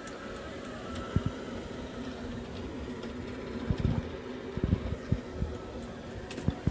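Shark robot vacuum running with a steady whirring hum, with several dull knocks scattered through it.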